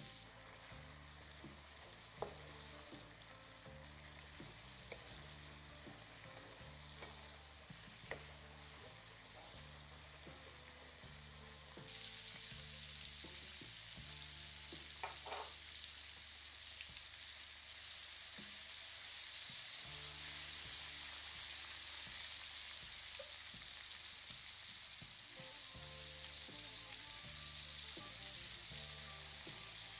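Sliced mushrooms and onion sizzling in oil in a nonstick frying pan, with a few faint clicks of a silicone spatula stirring. The sizzle jumps louder about twelve seconds in, once the mushrooms are browned, and grows a little more later on.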